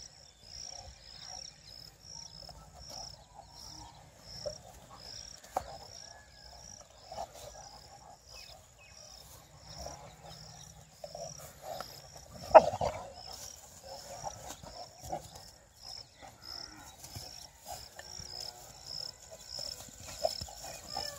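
Dogs growling during rough play-fighting, in short irregular bouts, with one sharp loud sound about halfway through. A high chirp repeats about twice a second in the background.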